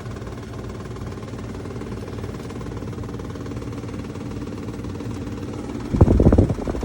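BLACK+DECKER portable air conditioner running with a steady hum, its cooling weak: it blows air that is not cold. Near the end comes a short, loud burst of rattling knocks.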